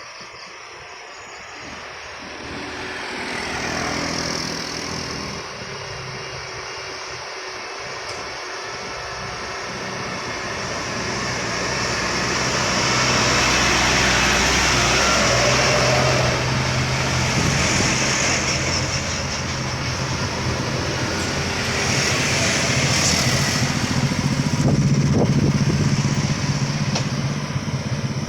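A heavy diesel vehicle approaching and passing close by, its engine a steady low drone. The noise builds over the first dozen seconds and stays loud to the end.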